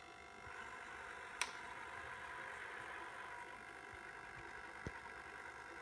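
Servo motors of a 3D-printed InMoov robot hand pulling the finger tendons to close the fingers, a faint steady whir. There is a sharp click about a second and a half in and a lighter click near five seconds.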